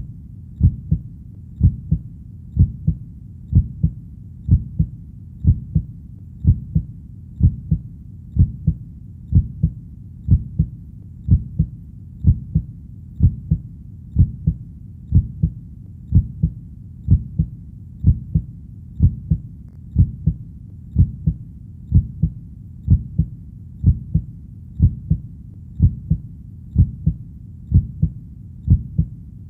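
Steady heartbeat at about one beat a second, each beat a low two-part lub-dub, over a faint low background hum.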